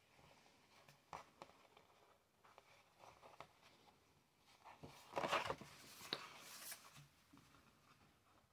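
Darning needle and mohair-silk yarn being pulled through thick fine art paper: faint scratchy rasps and small clicks, with the longest and loudest rasp about five seconds in.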